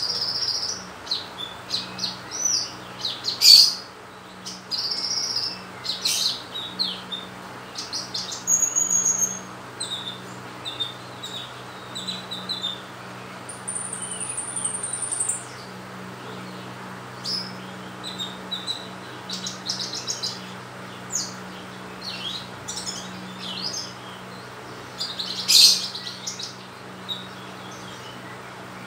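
A sunbird singing busily: rapid high chirps and short trills in quick bursts, with a few longer held high notes, over a steady low hum.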